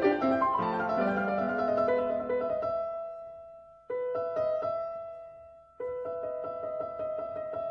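Slow solo piano music. Twice a held note dies away almost to silence, and the playing cuts back in suddenly.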